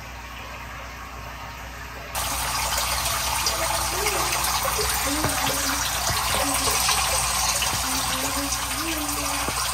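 Water from a homemade frog rain chamber spraying and pouring down into a plastic tub, a steady loud hiss with splashing that comes in suddenly about two seconds in.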